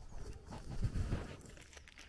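Footsteps of a person walking, a few soft thuds, the firmest near the middle.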